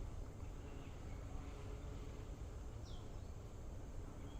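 Quiet tropical-forest ambience: a faint steady insect drone over a low background rumble, with one short falling bird chirp about three seconds in.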